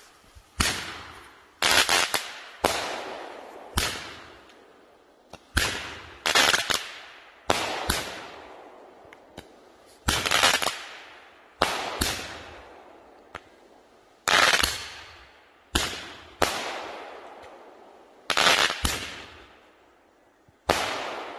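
Two 5-shot Roman candles firing together: a run of sharp pops, one every second or so, each trailing off in a hiss as the star flies.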